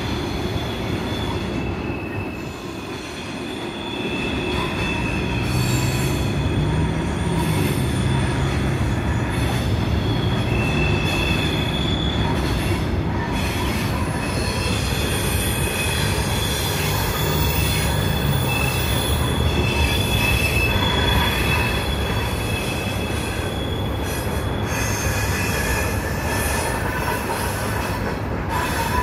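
A CSX freight train of lidded gondola cars rolling across a railroad bridge: a steady rumble of wheels on rail with thin, high wheel squeal that comes and goes throughout.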